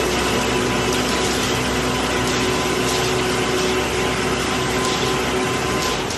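Self-loading concrete mixer running steadily: a loud, even machine noise with a steady whine on top.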